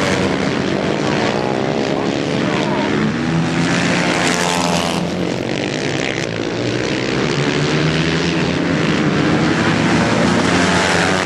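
Several racing motorcycle engines revving hard at once, their pitch rising and falling as the bikes accelerate, shift and brake through the corners.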